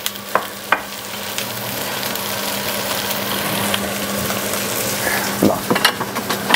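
Meatballs sizzling in butter in a frying pan, a steady hiss that grows a little louder, with a few sharp clicks of tongs against the pan.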